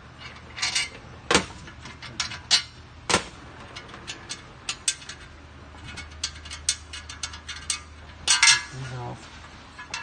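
Metal hub parts and bolts being handled, clinking and knocking together in irregular sharp clicks and taps.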